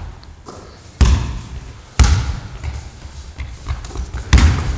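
A basketball being dribbled on a sports-hall floor: loud, echoing thuds about a second in, at two seconds and near the end, with lighter knocks between.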